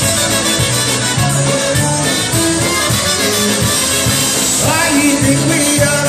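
Live polka band playing, with two trumpets carrying the tune over drums and a steady bass beat.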